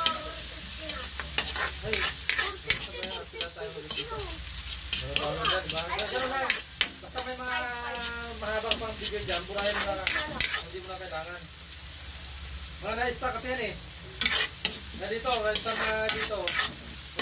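Metal spatula stirring and scraping chopped garlic, onion and ginger sautéing in hot oil in a steel wok: a steady sizzle with frequent sharp clicks and scrapes of metal on the pan. Pitched, voice-like background sounds come and go a few times.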